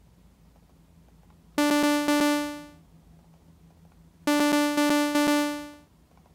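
Software synthesizer playing a short rhythm of repeated notes, all on one pitch (D), in a bright, buzzy tone. The phrase is played twice, about a second and a half in and again about four seconds in, and the second pass is a little longer. It is a one-note rhythm being programmed in the MIDI piano roll before it becomes a melody.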